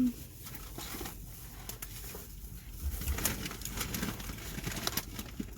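Faint eating sounds, with soft scattered clicks and rustles of chewing and food handling over a low steady hum.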